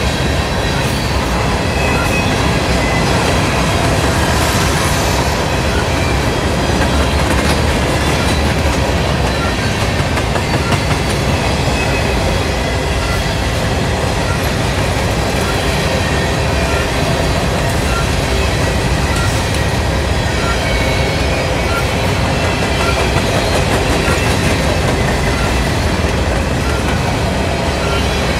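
Norfolk Southern grain train's covered hopper cars rolling past, steel wheels running on the rails in a steady, loud rumble and clatter.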